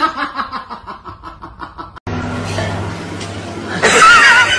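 A person laughing in quick, rhythmic bursts that fade away; after a sudden cut, a steady low hum, then near the end a loud, wavering high-pitched cry that falls in pitch.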